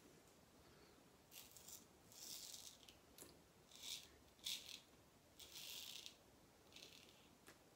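A small razor scraping through stubble and shaving lather on the chin and neck: a series of short, irregular strokes, each a brief rasp.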